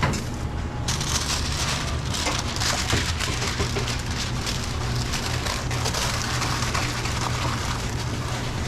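Food sizzling and crackling in hot oil or on a grill in a commercial kitchen, a dense, even frying noise with many small pops, over a steady low hum.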